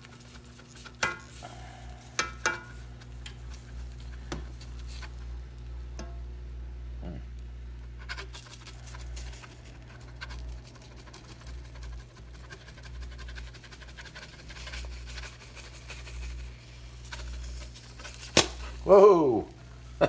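Plastic spatula clicking and scraping against a non-stick frying pan, a few short taps near the start and a sharp click near the end as the egg shoots up off the spatula, over the steady hum of a dishwasher running.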